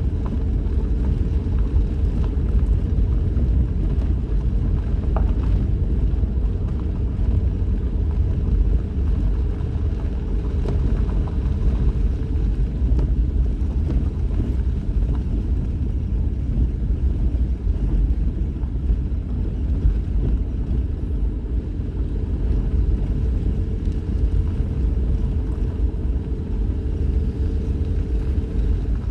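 Vehicle driving along a mountain forest road: a steady low rumble of engine and road noise.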